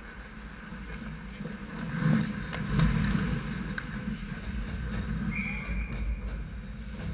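Ice hockey scramble at the net: skates and sticks clattering, with several sharp stick-and-puck hits two to four seconds in, then a referee's whistle, one steady blast just under a second long about five seconds in, stopping play.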